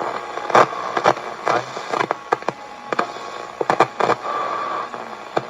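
Soundwave SW-2900 multiband transistor radio on the AM broadcast band, giving static hiss with irregular crackles and clicks as it is tuned, and a brief steady whistle near the end.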